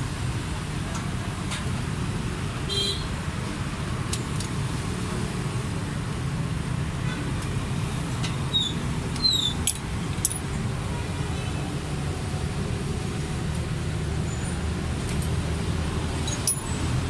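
Steady low mechanical rumble, with a few light clicks and taps of hand tools while the engine's tappets are set.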